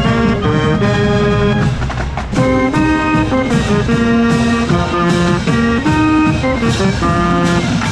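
Marching band playing a brass tune in sustained chords over drums, heard from inside the saxophone section.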